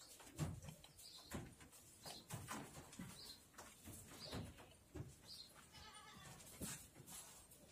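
Faint scattered knocks and rustling on a straw and dirt floor, with a few short high chirps. About six seconds in comes a brief bleating call.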